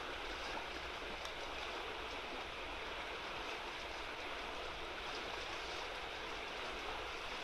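Shallow, fast-flowing river water rushing steadily, with a couple of faint ticks near the start.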